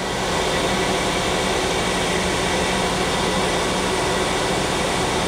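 Main spindle of a Hyundai-Kia SKT-21LMS CNC turning center running empty at 2500 RPM, a steady even whir with a faint constant hum.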